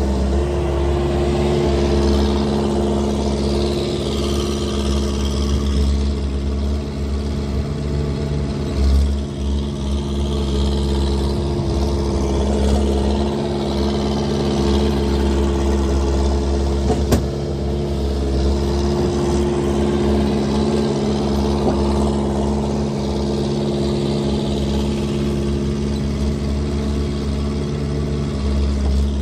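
Skid steer engine running steadily, loud and without an exhaust/muffler fitted, with a single sharp click about two-thirds of the way through.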